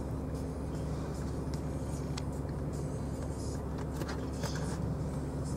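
Steady low hum of a car idling at a standstill, heard from inside the cabin, with a few faint scattered clicks.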